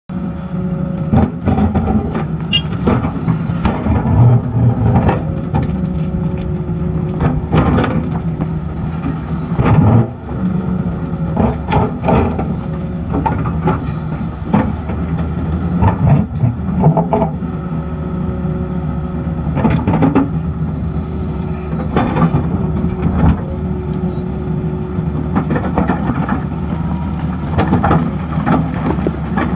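Tata Hitachi excavator's diesel engine running steadily, with many sharp knocks and cracks at irregular intervals.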